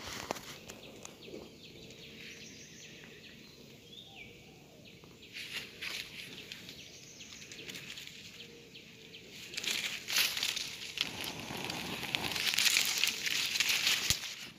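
Leaves and twigs rustling and crackling as someone moves through a leafy tree. Faint at first, it comes in bursts from about five seconds in, then grows louder and nearly continuous from about ten seconds.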